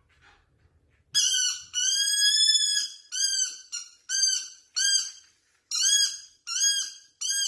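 A squeaky rubber ball toy squeaking over and over as a dog chews it, starting about a second in: one long squeak, then a steady run of shorter, high-pitched squeaks about twice a second.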